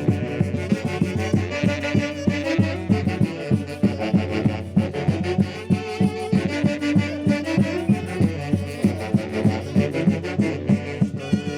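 A band playing Andean Santiago music: wind instruments over a steady drum beat of about three strokes a second.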